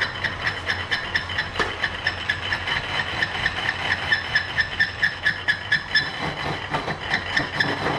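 Antique Selig Sonnenthal metal lathe running under its half-horsepower electric motor while cutting a mole plough offcut. The cutting tool knocks against the workpiece about four times a second over a steady machine hum, and the knocks are loudest in the middle. This is the tool digging in on each turn, with slack in the carriage letting it twist.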